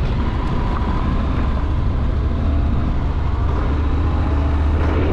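Motorcycle running along the road, its engine a steady low hum under an even rush of wind and road noise.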